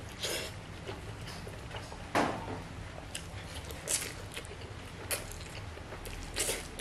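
Close-miked slurping of instant fried noodles: about five short, noisy slurps, the loudest about two seconds in.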